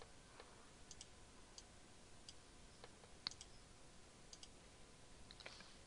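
Faint computer mouse clicks, scattered and some in quick pairs, over near-silent room tone.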